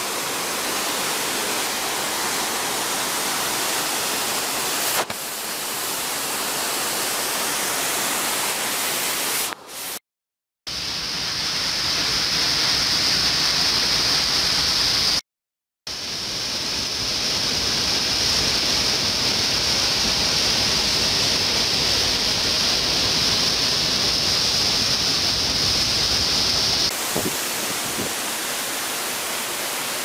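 Waterfall: a steady rush of falling water. The sound cuts out twice briefly near the middle, and a steady high hiss sits over the rush for much of the second half.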